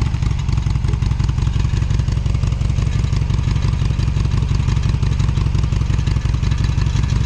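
Harley-Davidson Sportster's V-twin engine running steadily with an even, low pulsing beat, with no revving.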